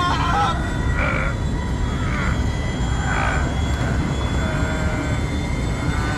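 Steady low rumble of a film spaceship's engines running at ludicrous speed, with three short rasping sounds about a second apart.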